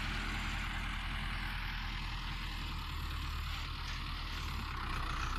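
Tractor diesel engine running steadily at low revs; the low engine note shifts about three seconds in.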